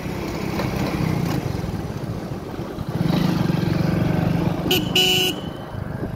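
Two-wheeler engine running with road and wind noise while riding, getting louder about halfway through. About five seconds in a vehicle horn gives a short toot and then a slightly longer honk.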